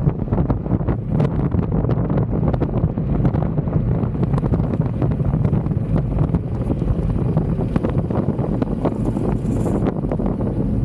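Wind buffeting the microphone and tyre rumble from a stand-up electric scooter rolling at steady speed over a coarse chip-seal road. Frequent small clicks and knocks run through it.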